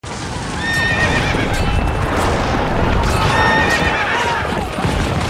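Horses whinnying and hooves clattering over a dense low rumble, a war-scene sound-effects bed. Two long whinnies come about a second in and again just past three seconds.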